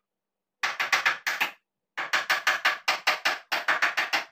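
Rapid knocking on a wooden IKEA bed frame as its top rail is pounded down onto the upright posts: two quick runs of sharp blows, about six a second, with a short pause between them.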